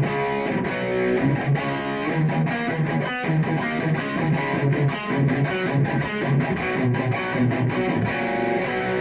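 Fender American Performer Stratocaster HSS electric guitar played through distortion, a rhythm part of short, choppy chords repeated in a steady pattern.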